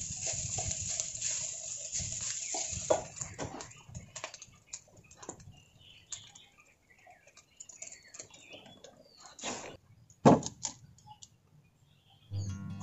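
Food sizzling in a pan with a cooking utensil clicking and scraping against it, dying away after about four seconds; then scattered light clicks and one louder knock near the end.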